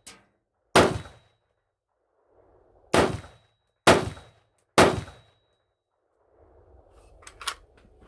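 AR-15 firing single semi-automatic shots, four in all, spaced one to two seconds apart, with a few light metallic clicks near the end. The new upper is cycling each round, which the shooter calls running pretty good.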